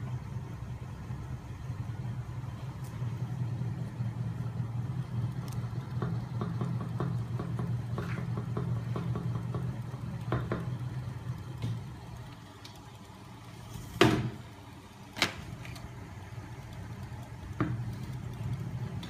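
Homemade magnet-motor machine running, its flywheel, crankshafts and magnet assemblies spinning, driven by a small electric motor: a steady low mechanical hum with scattered light clicks. Two loud sharp knocks come about fourteen and fifteen seconds in, and a smaller one near the end.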